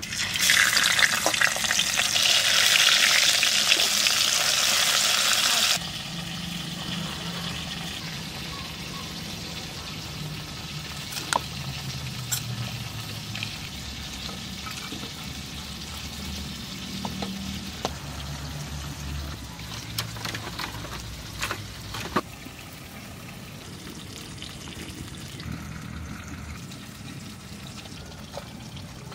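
A small turmeric-coated fish sizzling loudly as it goes into hot oil in an iron wok. The sizzle cuts off abruptly after about six seconds, and quieter low rumbling with a few sharp clicks follows.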